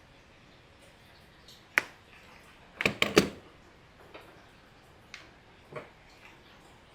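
Workbench handling noise from working on a power cord: a few sharp clicks and snaps, with the loudest a quick cluster about three seconds in.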